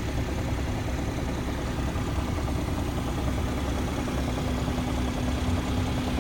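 2017 BMW 340i xDrive's turbocharged 3.0-litre straight-six running steadily at idle, with a fast, even pulsing through the sound. The owner reports a knocking noise from this car whenever the fuel tank is below a quarter full.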